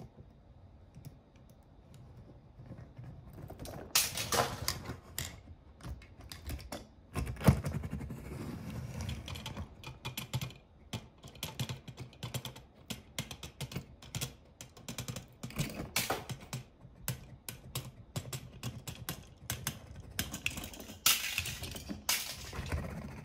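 Small die-cast toy cars rolling and clattering over a hard floor: a rapid run of small clicks and knocks from their wheels and bodies, beginning about three seconds in, with one louder knock about a third of the way through.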